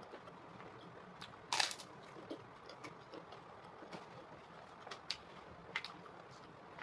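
A person chewing food close to the microphone, with scattered small mouth clicks and one loud, crisp crunch of a bite about a second and a half in; a few sharper clicks come near the end.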